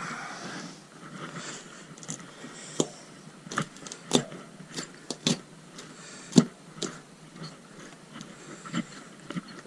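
Irregular sharp knocks and clicks with faint rustling from hand work on a motorcycle tyre and wheel, breaking the tyre bead on the second side.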